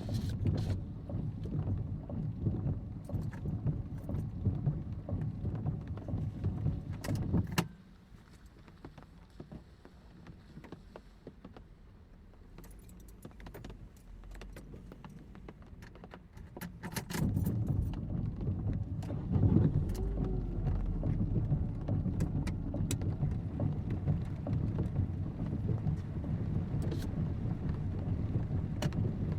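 Rain falling with a heavy low rumble and scattered sharp drop ticks. The rumble cuts out abruptly about a quarter of the way in, leaving a much quieter patter, and swells back up a little past the middle.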